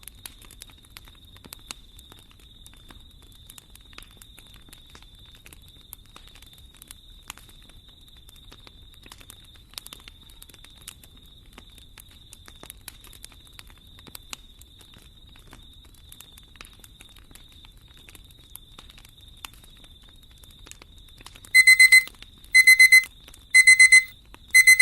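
Fireplace fire crackling softly with scattered small pops over a faint steady high tone. About twenty-one seconds in, an electronic alarm starts beeping: bursts of rapid high beeps about once a second, much louder than the fire, marking the timer's end.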